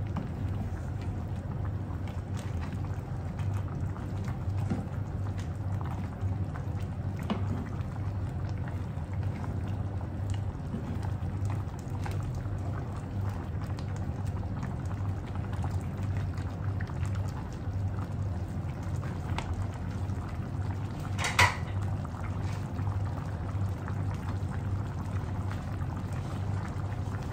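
Coconut-cream sauce with crabs and prawns simmering and bubbling in a pan, with a wooden spatula stirring and scraping through it in the first part. A single sharp knock comes about three-quarters of the way through.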